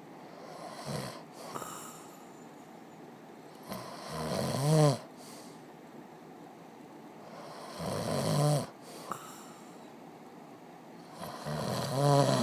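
A person snoring: three loud snores about four seconds apart, each swelling and then cutting off sharply, with a few short, fainter snorts in between.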